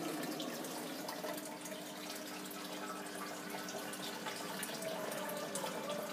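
Aquarium water trickling and splashing from filter outflow, a steady running-water sound with fine dripping ticks over a faint steady hum.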